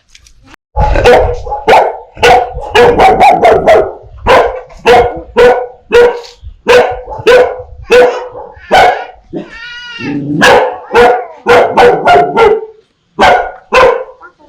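Dogs barking in rapid, repeated loud barks, several a second, with a longer pitched cry about ten seconds in.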